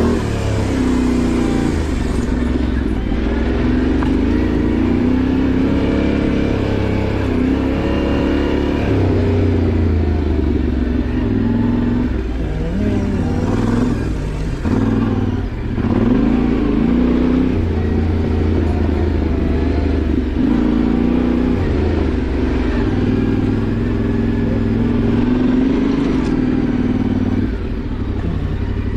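Yamaha Ténéré 700's parallel-twin engine being ridden off-road, the revs rising and falling over and over as the throttle is opened and closed, with a few brief drops about halfway through.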